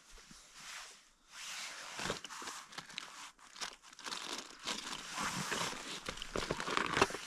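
Rustling and crinkling with many small clicks and knocks, broken by a short lull about a second in, and a sharper click near the end.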